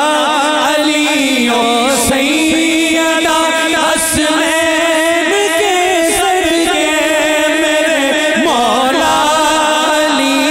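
A man's voice singing a naat, an Urdu devotional poem in praise of the Prophet, through a PA system in long, ornamented held notes. A few sharp ticks come about every two seconds.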